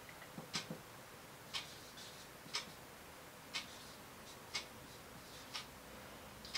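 A clock ticking quietly and evenly, about once a second.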